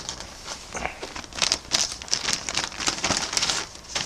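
Packaging crinkling and rustling as spare helmet pads are pulled out and handled. It comes in quick crackly bursts that are light at first and busiest from about a second and a half in.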